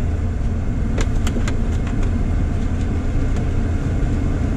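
Car driving on a paved road, heard from inside the cabin: a steady low rumble of engine and tyres, with a few light ticks about a second in.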